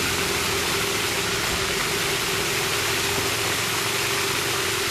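A steady mechanical hum, one constant droning tone over an even hiss, unchanging throughout.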